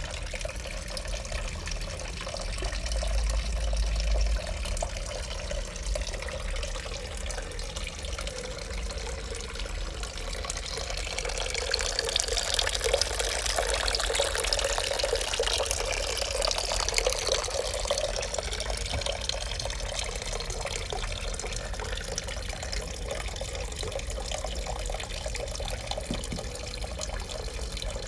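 Tiered garden fountain running, water spilling from bowl to bowl in a steady trickle and splash. It grows louder about halfway through. A brief low rumble comes a few seconds in.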